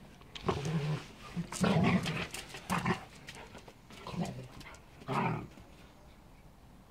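Two dogs play-fighting, a Caucasian shepherd puppy and a giant poodle, with short bursts of growls and snarls. The bursts are loudest just under two seconds in and stop after about five and a half seconds.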